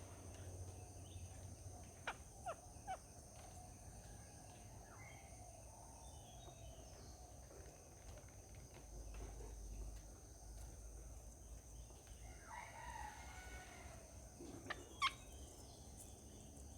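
Faint rooster crowing, a long falling call at the start and another about twelve seconds in, with a few short sharp chirps around two to three seconds in and one louder chirp near the end.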